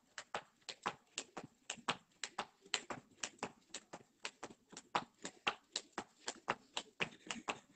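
Rope skipping on paving slabs: the skipping rope slapping the slabs and trainers landing, in a quick, steady rhythm of sharp ticks, about three to four a second.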